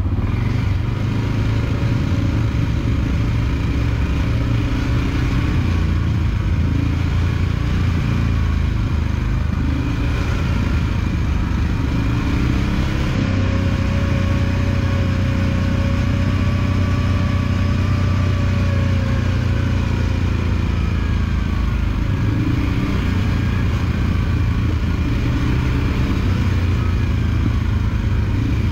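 ATV engine running steadily under way on a mountain trail. Its pitch rises slightly about 13 seconds in and eases back down around 20 seconds.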